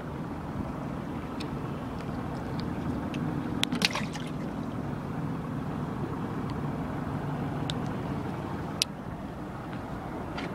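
Steady low rumble of a boat's Yamaha 115 outboard motor idling. A few sharp clicks come about four seconds in, and one more near the end.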